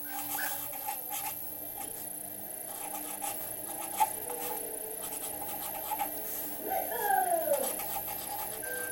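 A cat meowing once, about seven seconds in, the call falling in pitch, over faint scattered clicks.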